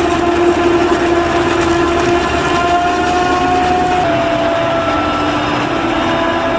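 Claas Jaguar 950 forage harvester chopping maize under load, a loud steady machine drone with whining tones that shift in pitch about two and four seconds in, together with the John Deere tractor pulling the forage wagon alongside.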